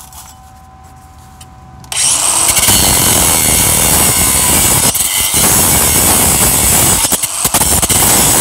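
Cordless angle grinder spinning up about two seconds in and grinding the steel of a rusted truck frame, loud and steady, easing off briefly twice.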